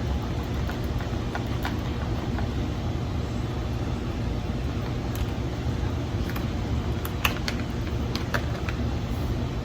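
Small clicks and taps of a plastic charger plug being worked against a battery socket, over a steady low rumble.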